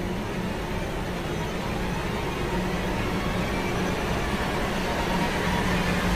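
A steady low rumbling drone with a hum under it, slowly growing louder.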